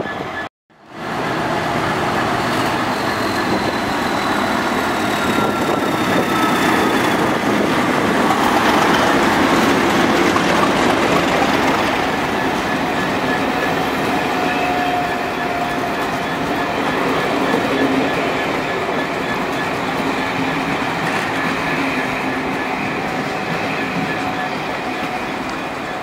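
A train of passenger coaches running past along the platform: a steady rumble of wheels on rail with clatter and faint wheel squeal, loudest about a third of the way through. The sound cuts out completely for a moment just before it starts.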